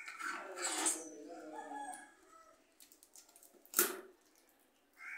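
A rooster crowing once, a long call of about two seconds that rises and falls in pitch. A single sharp click follows near the end, and crows caw briefly at the start and the end.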